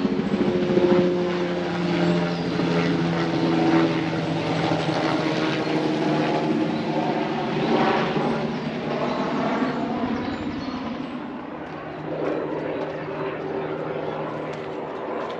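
Helicopter flying low overhead on its approach to land, a loud, steady rotor and engine noise that eases off after about ten seconds.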